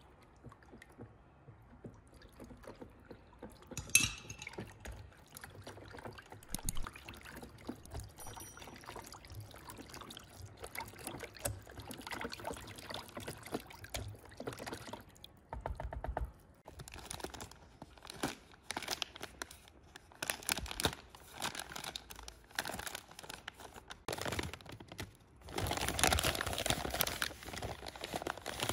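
Wire whisk beating runny batter in a plastic bowl: quick wet sloshing strokes with clicks of the wires against the bowl, and a sharp tap about four seconds in. Near the end, a paper flour bag rustles as it is torn open.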